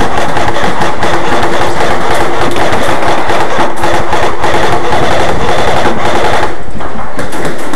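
Airsoft guns firing on full auto: a fast, continuous rattle of shots over a steady whine, which breaks off about six and a half seconds in.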